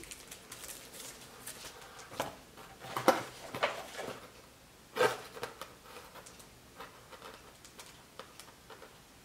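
Paper and card being handled: rustling and crinkling with scattered small ticks, and a few louder crinkles about two, three and five seconds in.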